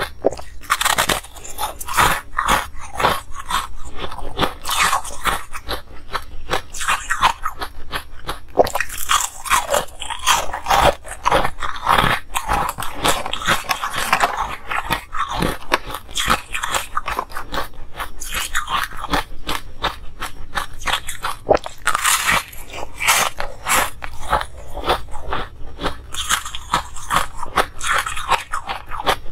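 Close-miked crunching of waffle-shaped ice pieces being bitten and chewed, many crunches one after another.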